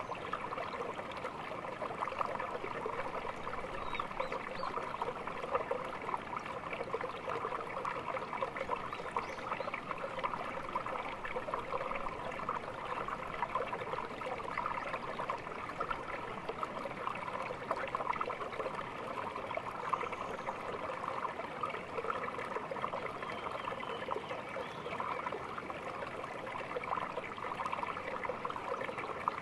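A small stream of water trickling and babbling steadily over stones.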